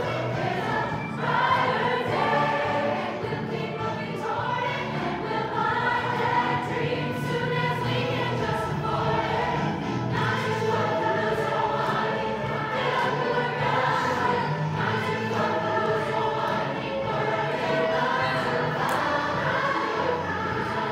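A group of voices singing together over instrumental accompaniment.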